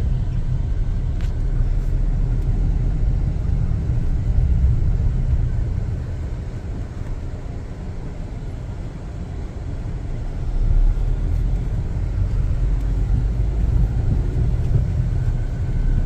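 Steady low rumble of a car's engine and tyres heard from inside the cabin while driving in traffic. It quietens for a few seconds in the middle and picks up again after about ten seconds.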